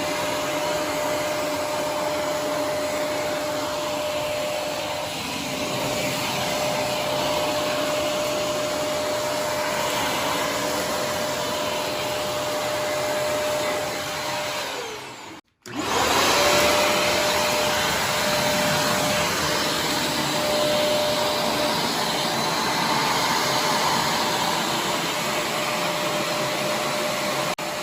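Vacuum cleaner running with a steady whine and rush of air. About halfway through, the whine drops and the sound cuts out for a moment, then it comes back up and runs on.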